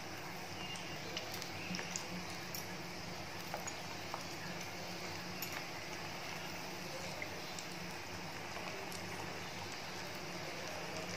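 Whole unpeeled bananas frying in hot oil in a kadai: a steady sizzle with scattered small pops and crackles.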